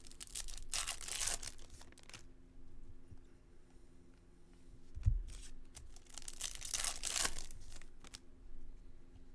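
Foil wrapper of a trading card pack tearing and crinkling in two stretches, with a soft knock about five seconds in.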